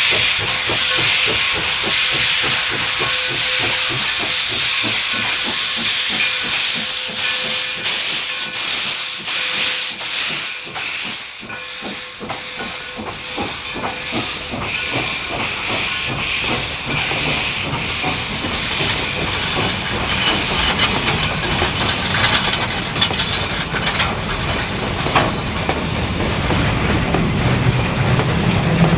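Steam locomotive letting off a steady rush of hissing steam, with a rapid run of short beats. A low rumble builds near the end as the train comes closer.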